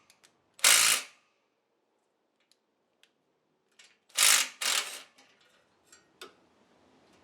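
Tools working on the motorcycle's exhaust pipe fittings: two short, loud, noisy bursts, one just under a second in and one past the middle, with a few light metallic clinks in between and near the end.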